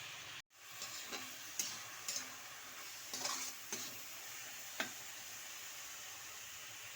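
Food sizzling as it stir-fries in a pan, with a spatula scraping and knocking against the pan several times in the first five seconds.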